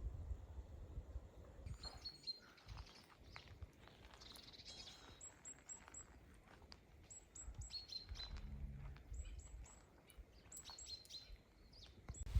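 Songbirds chirping and calling, starting about two seconds in: many short, high chirps in quick runs. A low rumble sits underneath.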